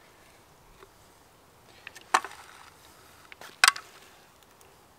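Two sharp knocks about a second and a half apart, with a few faint ticks just before the first: small camp-stove gear being handled and set down.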